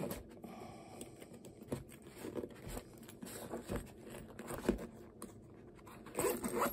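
Zipper of a small fabric storage pouch being worked open, with light rustling and clicks of the fabric and zip pull being handled; a louder rasp of the zip running comes near the end.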